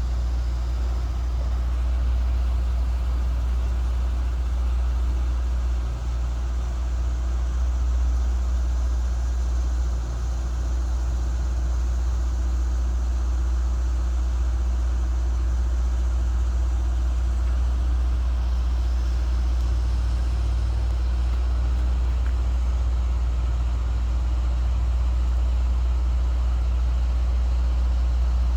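A vehicle engine idling: a steady, unbroken low rumble.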